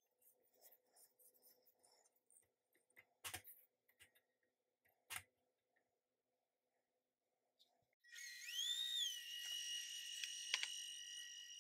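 A spatula knocks and scrapes faintly against the steel bowl of a KitchenAid stand mixer, two small knocks standing out. About eight seconds in the mixer's motor starts with a rising whine that settles into a steady high whine as it beats flour into cake batter.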